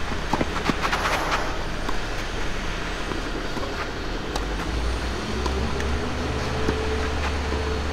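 Tennis rally: sharp racket-on-ball hits every second or so over a steady rumble of road traffic. About halfway through, a vehicle's low engine drone swells and holds.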